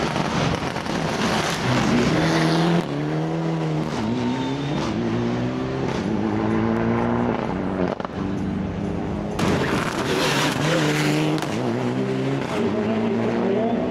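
Rally car engine revving hard, its pitch climbing and dropping again and again as it shifts through the gears. Two stretches of loud rushing noise come over it, one at the start and one about nine seconds in.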